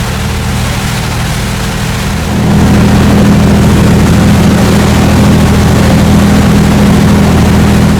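Fishing boat's engine running steadily with a low hum. About two seconds in it grows louder, as if under more throttle, and then holds.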